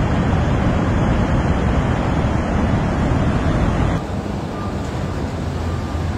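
Heavy storm surf breaking and washing up a beach: a steady rushing noise, deep and heavy, with wind buffeting the microphone. About four seconds in it cuts abruptly to a quieter take of the same surf.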